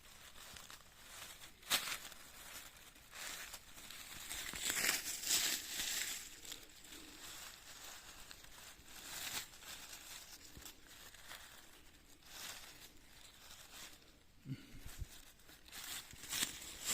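Irregular rustling, crackling and tearing of leaf litter and plant matter as honey fungus is picked and handled in the undergrowth. Louder bursts come about two seconds in, around five seconds in, around nine seconds in and near the end.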